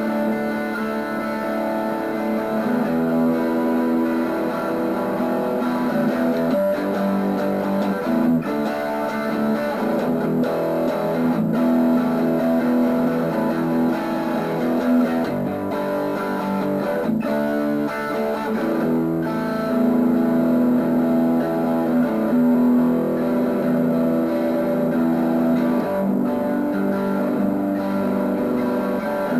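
Fender Telecaster electric guitar played through a small Fender Champ 600 amplifier: a tune of ringing chords and picked notes that change every second or two.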